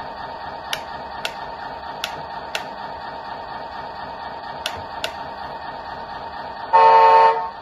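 Radio-controlled model bulldozer's sound unit playing a steady, buzzy simulated engine through a small speaker, with sharp clicks scattered through it. Near the end comes a loud honk lasting under a second.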